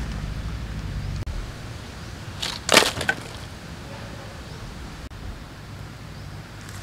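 A dry stick snapping: a short burst of sharp cracks and splintering about two and a half seconds in. A low rumble stops about a second in.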